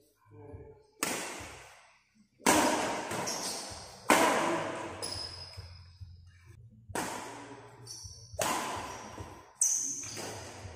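Badminton rackets striking a shuttlecock in a rally: about six sharp hits roughly one and a half seconds apart, each echoing in a large hall. Short high shoe squeaks on the court come between the hits.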